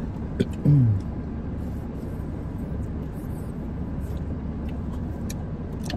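Steady low rumble of a car's interior. A short falling voice sound comes just under a second in, and a few faint clicks are heard.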